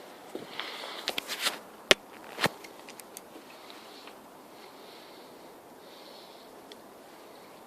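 Soft breathing and sniffing close to the microphone. A few small ticks come about a second in, then two sharp clicks about half a second apart.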